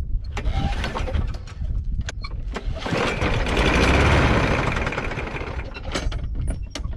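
Old Craftsman lawnmower's small engine being cranked. After a few seconds of clicks and rumbling, a dense stretch of cranking noise swells about three seconds in and fades out without the engine settling into a run.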